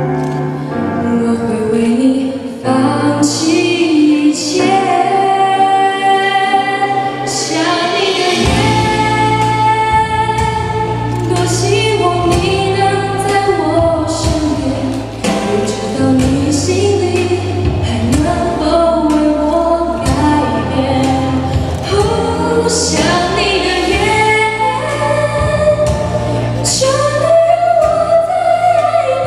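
A woman singing a slow Mandarin pop ballad into a handheld microphone over instrumental accompaniment; a deep bass line comes in about eight seconds in.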